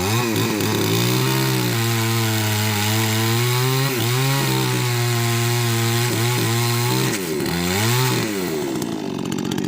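Chainsaw engine revved up and held at a steady high pitch, dipping briefly about four seconds in, then revved again and let down to a rougher, noisier sound near the end.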